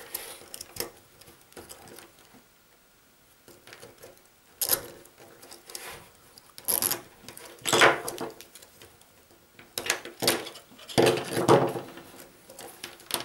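Small plastic handling sounds: telephone cables and a plastic cable tie worked into a small plastic junction box, with irregular light clicks and several short scratchy rasps as the cable tie is pulled tight around the cable sheaths.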